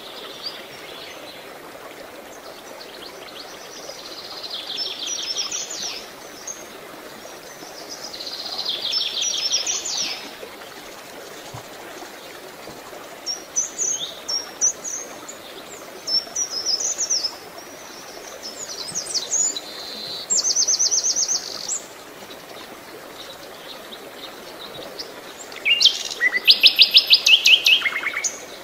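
Songbirds singing: short high phrases every few seconds, several of them fast trills, the loudest trill near the end, over a steady faint hiss.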